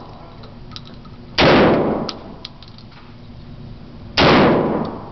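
Two blasts from a Remington 12-gauge semi-automatic shotgun firing buckshot, about a second and a half in and again near the end, nearly three seconds apart. Each one rings on briefly off the walls of the indoor range.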